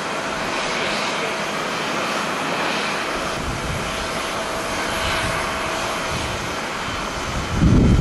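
Jet airliner engines heard from afar, a steady roar with a faint whine. About seven and a half seconds in, a loud, uneven low rumble sets in.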